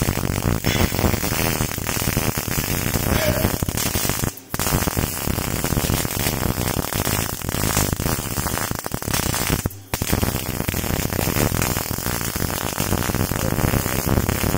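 MIG welding arc crackling and sputtering steadily as the wire feeds, cutting out briefly twice, about four and a half seconds and ten seconds in.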